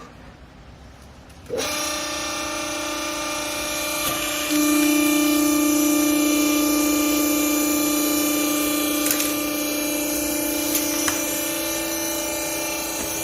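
Electric motor and hydraulic pump of a vertical clothes baler starting up about one and a half seconds in and running with a steady whine, which gets louder about four and a half seconds in as it comes under load.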